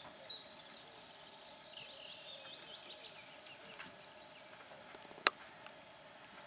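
Marsh harrier calling: thin, high notes that slide quickly downward, a couple in the first second, then a run of wavering calls about two to three seconds in, likely from the perched female. A single sharp click comes about five seconds in.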